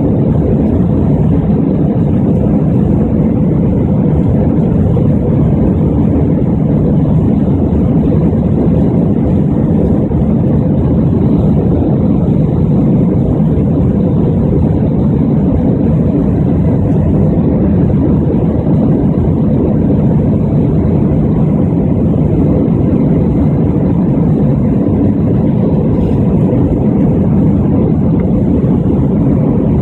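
Steady low roar of an Airbus A320-200 climbing after take-off, its engine and airflow noise heard from inside the cabin.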